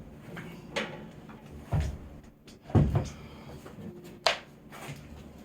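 Wooden knocks as lumber is fitted and knocked into place on a small wooden frame: four separate knocks about a second apart, the last one sharper.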